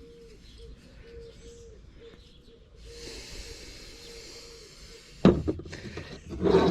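Metal hand tools being handled and set down: a sharp clunk about five seconds in and a louder clatter near the end, over a faint hiss. Under it, a faint high note repeats about twice a second.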